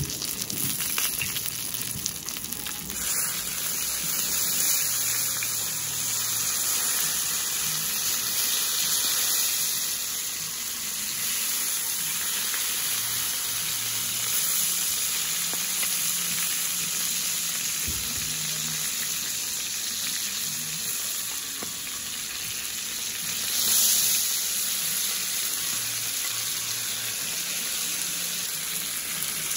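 A freshly served oven-roasted tomahawk steak sizzling steadily as its fat and juices bubble on the plate.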